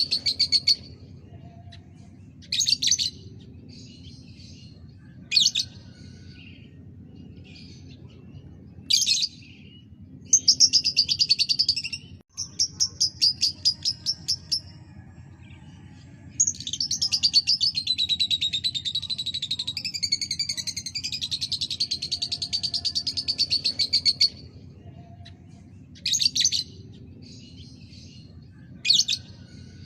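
Lovebird singing: short sharp chirps between long, rapid chattering trills, the longest lasting about eight seconds past the middle.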